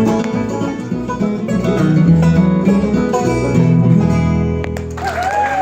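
Bluegrass band playing the instrumental close of a song, banjo and acoustic guitar picking, stopping about five seconds in as applause and cheering break out.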